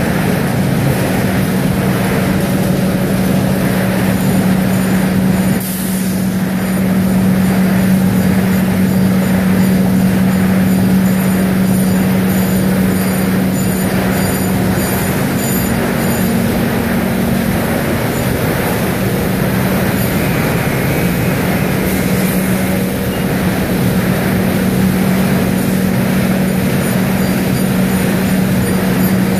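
Ward three-color rotary die cutter and its stacker line running in production: a loud, steady industrial machine din with a constant low hum.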